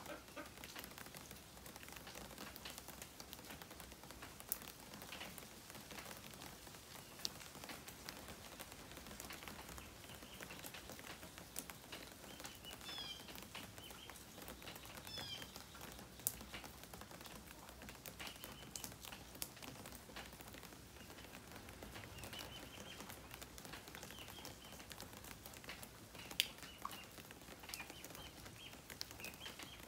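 Light rain pattering, with scattered sharp drips. A few short, high bird chirps come and go in the middle and second half.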